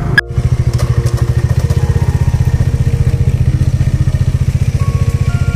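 A brief sharp click near the start, then a motorcycle engine idling steadily with an even beat of about a dozen pulses a second.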